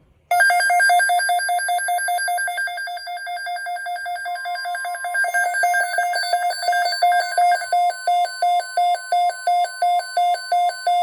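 Weather radio receivers sounding their alert alarm: a fast electronic beeping that slows to about two beeps a second after about eight seconds. About four seconds in, a steady single tone near 1 kHz joins it, the NOAA weather radio alert tone that sets off the receivers ahead of a watch announcement.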